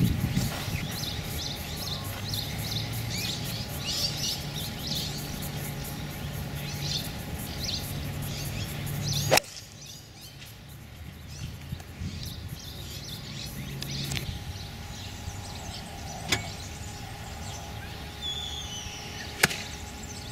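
Sharp cracks of a golf club striking the ball: one about nine seconds in, another about sixteen seconds in and a third near the end. Birds chirp in the background over a low steady hum.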